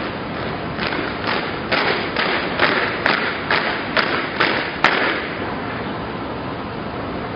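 A squad marching in step on pavement, their boots striking in unison in about ten sharp stamps, roughly two a second. The stamps stop about five seconds in with the loudest one, leaving a steady hiss.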